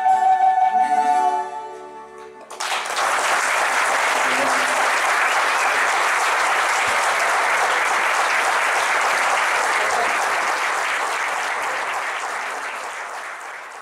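An ensemble's last held flute note and guitar chord ring out and die away. About two and a half seconds in, an audience breaks into steady applause, which fades out near the end.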